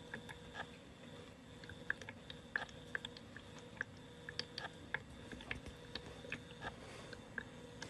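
Volcano-style aroma diffuser running: a faint steady hum with two steady tones, and irregular small clicks and pops a few times a second.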